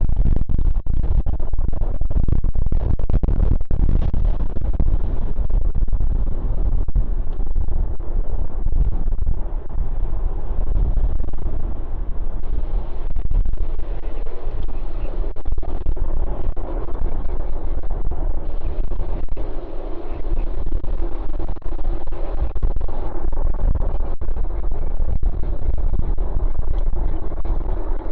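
Strong wind buffeting the phone's microphone, a heavy, distorted rumble with heavy clipping. Distant jet engine noise builds underneath in the second half and grows louder toward the end.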